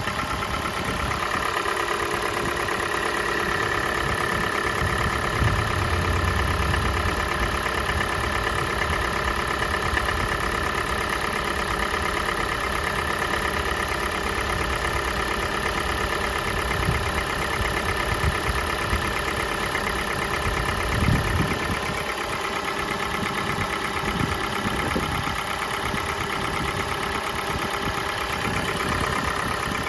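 Kia Sportage G4NA 2.0-litre four-cylinder petrol engine idling steadily on a cold start, with a few brief louder ticks. The owner presents it to let its cold-start knocks be heard.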